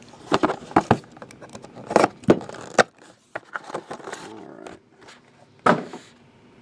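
White cardboard trading-card boxes being handled, opened and set down on a table: irregular taps, knocks and light scrapes of cardboard, the sharpest knocks about two seconds in and near the end.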